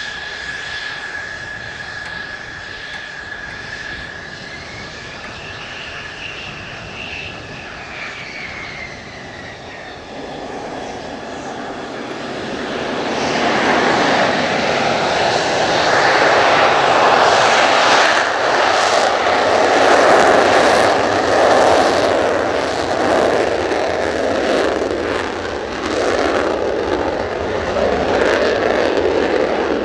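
Mitsubishi F-2 fighter's single F110 turbofan whining steadily at low power while taxiing. About ten seconds in it spools up, and by about thirteen seconds it is a loud, crackling jet noise at full afterburner for the takeoff roll.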